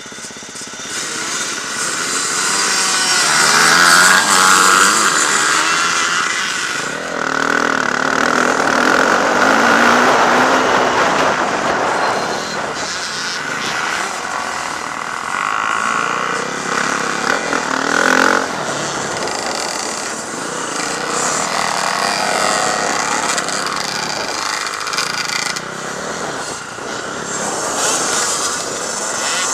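Several off-road motocross motorcycles running on a dirt track, their engine notes rising and falling with the throttle as they ride.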